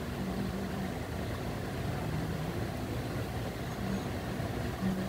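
A steady low mechanical rumble.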